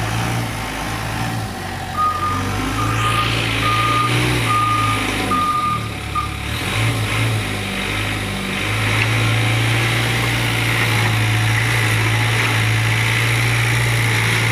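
Doosan DX55W wheeled excavator's diesel engine running, with its travel alarm beeping six times, about one beep a second, in the first half. From about the middle the engine runs steadily louder.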